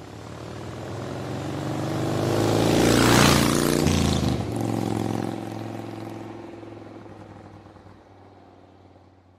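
A vehicle engine passing by: it swells up to a peak with a rush of noise about three seconds in, drops in pitch as it goes past, then fades away.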